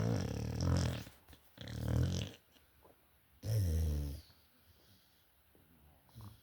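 A dog snoring: three low snores, each under a second long, spaced about a second and a half apart, in the first four seconds.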